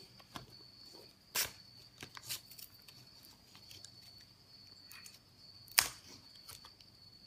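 A Hi-Chew candy packet being torn open and a single chew unwrapped by hand: soft crinkling and rustling with sharp snaps of the wrapper, one about a second and a half in and the loudest at about six seconds. A faint steady high whine sits underneath.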